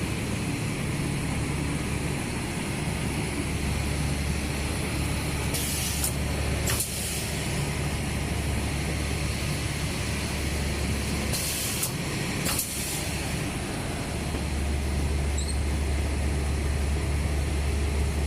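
Automatic L-type film sealer and heat-shrink tunnel running with a steady low hum and a thin high whine, with short sharp air hisses in pairs twice, about six seconds apart, as the sealer cycles.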